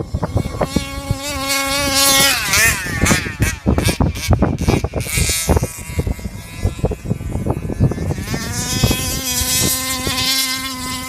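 Modded Revolver 32cc two-stroke engine of an RC Baja car running at high revs with a high, steady note. The pitch wavers a couple of seconds in, drops back in the middle and comes back strong near the end. Many sharp crackles and knocks run through it.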